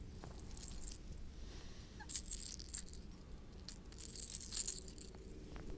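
Rattling of a lipless crankbait's internal rattles, heard in two short bursts of quick high clicks, about two seconds in and again past four seconds, over a faint low rumble.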